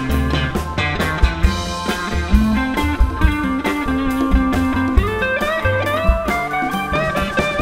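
Live band playing: an electric guitar carries a melodic lead line with sliding notes, over plucked upright double bass and a drum kit.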